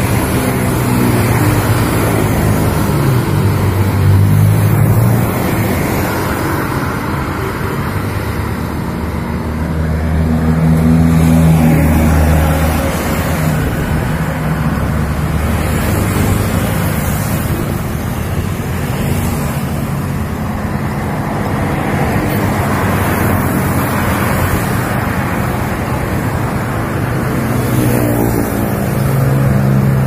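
Road traffic at night: cars and other motor vehicles pass close by one after another, engine hum and tyre noise swelling and fading as each goes past. The loudest passes come about four and about twelve seconds in, and another near the end.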